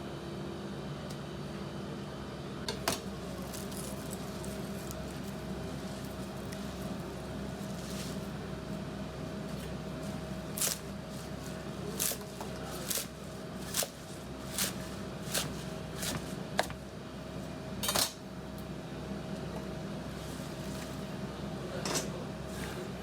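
Metal kitchen utensils and dishes clinking and clattering at irregular intervals over a steady low hum of kitchen equipment, with about a dozen sharp clanks, the loudest near the start and about two-thirds of the way in.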